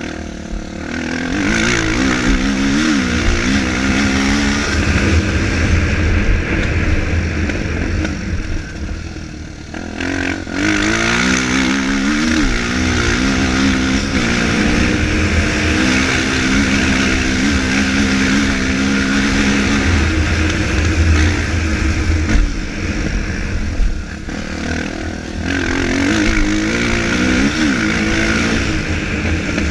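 Single-cylinder four-stroke dirt bike engine revving hard, its pitch climbing and dropping again and again as the rider works the throttle and gears, growing fainter around ten seconds in and again about three-quarters of the way through.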